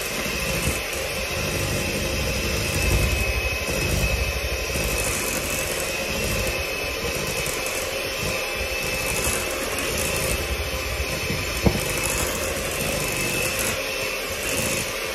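Electric hand mixer running steadily with a constant high whine, its beaters whipping cream cheese frosting in a glass bowl. A single sharp click comes about three quarters of the way through.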